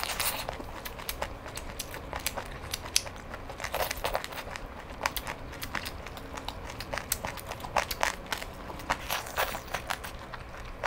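Close-miked chewing and biting of chicken feet in Thai-style sauce: many irregular crunches and crackles.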